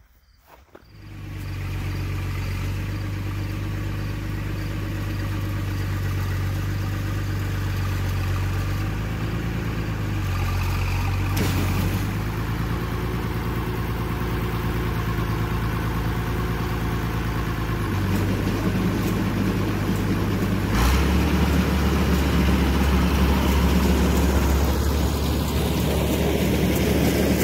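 White 2-85 tractor's engine running steadily, coming in about a second in; the sound changes suddenly twice and is louder and deeper over the last third.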